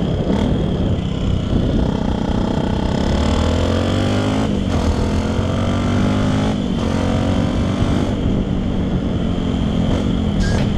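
Yamaha WR125X single-cylinder four-stroke motorcycle engine through a LeoVince LV One exhaust, accelerating through the gears: the engine note climbs in pitch, drops at each upshift, and climbs again, several times in a row.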